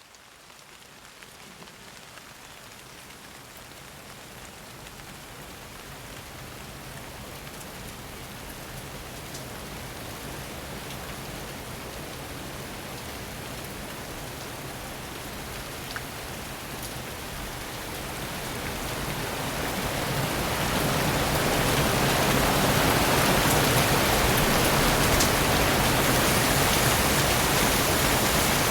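Rain falling steadily, swelling slowly from light rain into a heavy downpour that grows markedly louder about twenty seconds in and then holds, with a few distinct drop ticks here and there.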